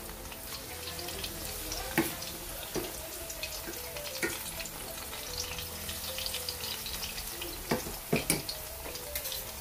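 Batter-coated slices of nian gao (Chinese New Year cake) deep-frying in hot oil in a wok: steady sizzling and crackling, with a few sharper pops, one about two seconds in and two near the end.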